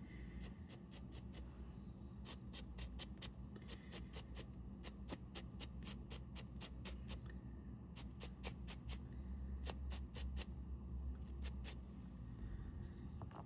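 Cloth rag wiping a resin G-Shock watch case: faint runs of quick rubbing strokes with short pauses between.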